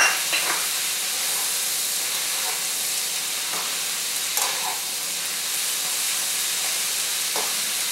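Zucchini spirals and other vegetables sizzling in a hot wok, a steady hiss, while metal tongs toss them, with a few faint clicks of the tongs.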